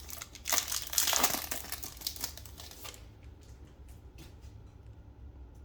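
Plastic-foil trading card pack wrapper crinkling as it is handled and opened, loudest in the first three seconds, followed by a few faint ticks.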